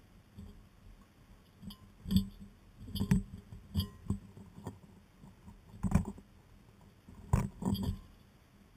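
Great spotted woodpecker knocking and clinking against the nut feeder just above the camera as it takes nuts. About ten irregular sharp knocks start about two seconds in and stop shortly before the end, the loudest near the middle and near the end.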